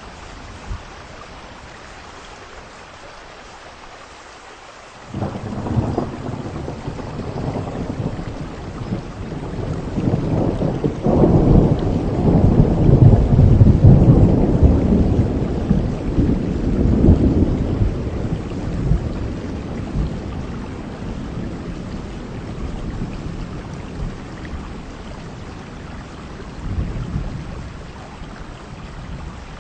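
Heavy rain falls steadily as a long peal of thunder breaks in suddenly about five seconds in. The thunder swells to a loud, deep rumble and slowly rolls away, with a smaller rumble near the end.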